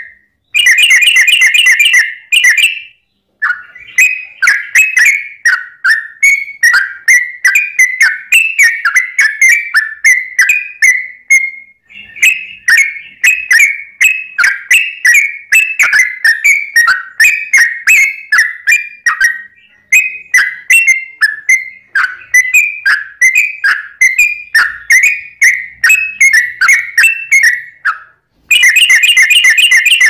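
Yellow-vented bulbul (trucuk) singing: long runs of quick, bright whistled notes repeated phrase after phrase, with very fast, dense trills near the start and again near the end.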